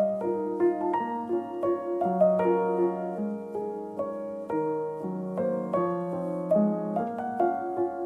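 Background piano music: a gentle melody of single notes over sustained lower notes.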